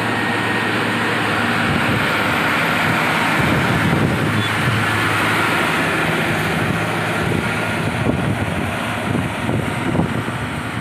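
Loaded Ashok Leyland 3718 fourteen-wheel truck's diesel engine pulling up a ghat climb as it passes close by: a steady drone that swells to its loudest about three to five seconds in, then eases as the truck moves away.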